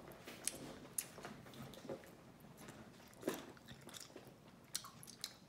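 A child chewing a mouthful of Hubba Bubba Bubble Tape gum: faint, wet mouth smacks and clicks at irregular moments, the loudest a little past the middle.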